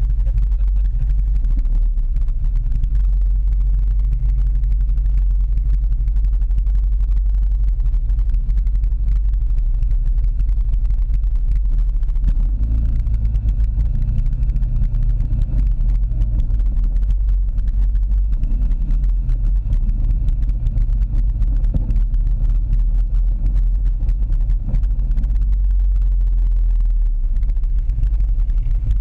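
ATV engine running as the quad rides over a dirt trail, heard from a camera mounted on the machine, with a heavy low rumble. The engine note shifts up and down a few times past the middle.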